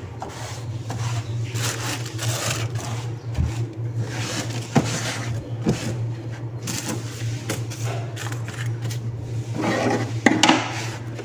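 A cloth rubbing and wiping the wooden shelves of a cupboard in repeated strokes, with a few sharp knocks of things on the wood, the loudest about ten seconds in. A steady low hum runs underneath.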